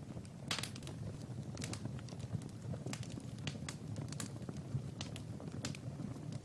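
Wood fire crackling in a fireplace: irregular sharp snaps and pops, about one or two a second, over a low steady rumble.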